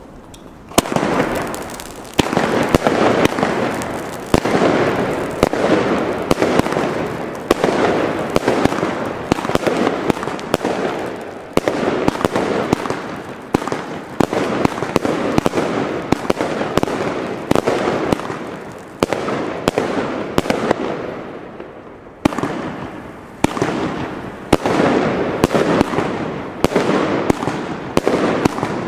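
Leviathan firework cake firing: a rapid string of shots and mid-air bursts over continuous crackle, starting about a second in. It eases briefly about three quarters of the way through, then picks up again.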